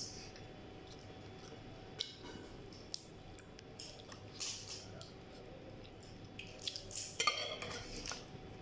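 Seafood being picked apart by hand on a ceramic plate: scattered small clicks and soft scrapes of shells and fingers against the plate, busier near the end.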